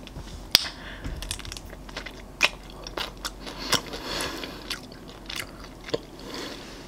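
Close-miked bites and chewing of a chocolate-coated ice-cream bar: scattered sharp crackles as the hard chocolate shell breaks, with softer mouth sounds between them.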